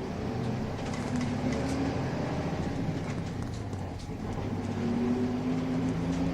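A Nissan Diesel Space Runner RM city bus underway, heard from inside the cabin: the diesel engine's pitch shifts and climbs again about five seconds in, over road noise and light cabin rattles. With age, the engine's note carries a discordant tone as it revs up.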